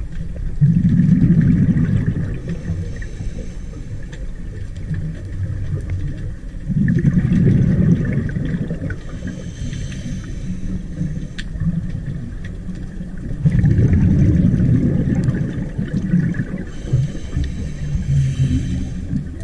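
Scuba diver breathing through a regulator, heard underwater: four rumbling bursts of exhaled bubbles, each about two seconds long and roughly six seconds apart, with a fainter hiss between some of them.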